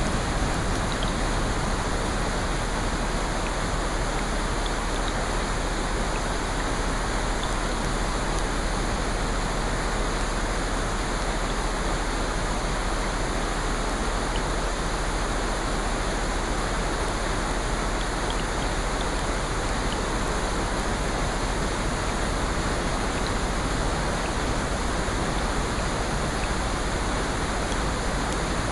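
Steady heavy rain: an even, unbroken hiss with a few faint drop ticks scattered through it.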